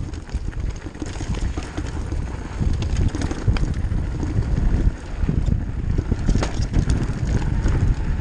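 Wind buffeting the camera microphone over the rumble and rattle of a mountain bike riding fast down a rocky trail, with a few sharp knocks as the wheels hit stones.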